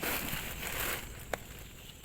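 Rustling of leaves and plant stems being handled, with a single sharp snap about a second and a half in.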